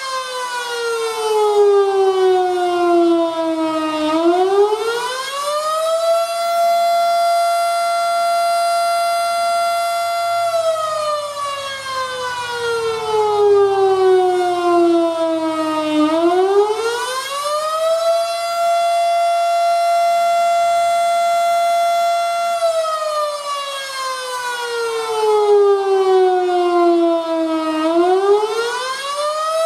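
Federal Model 5 outdoor warning siren sounding the attack signal, loud. Its pitch rises quickly, holds for several seconds, then slides slowly back down, and this wailing cycle repeats about every twelve seconds.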